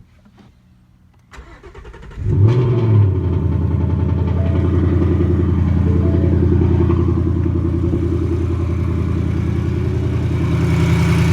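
2018 Ford Mustang engine being started: a short crank, the engine catching with a brief flare about two seconds in, then settling into a steady idle. The owner suspects piston slap or rod knock in this engine, which Ford's dealer called normal.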